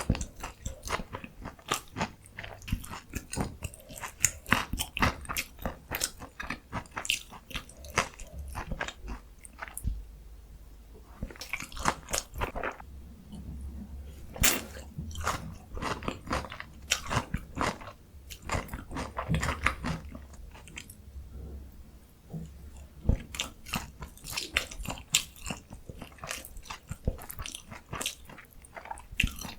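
Close-miked crunching and chewing of a breaded, deep-fried Korean pork cutlet (donkkaseu): dense crisp crackles for the first several seconds, a brief lull, then further bites in clusters.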